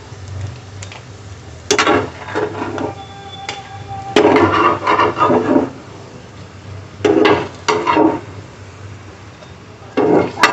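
Steel spatula scraping and clattering against a non-stick frying pan as shallow-fried bread tikkis are lifted out of the oil, in four separate bursts a couple of seconds apart, with oil sizzling lightly between them.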